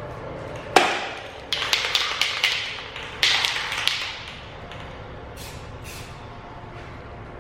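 Aerosol spray-paint can spraying in a series of short hissing bursts, mostly in the first half, with a few fainter short bursts later.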